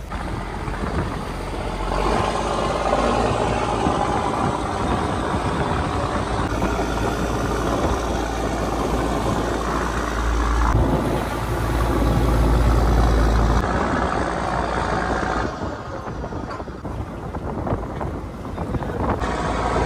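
Fishing trawler's engine running, a steady low rumble under a noisy wash, changing abruptly several times.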